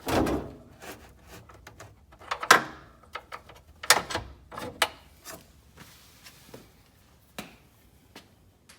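Onan generator on a slide-out tray being moved on its drawer slides: a scrape as it passes over the air-exhaust duct, then several hard clunks and knocks, fading to lighter ticks.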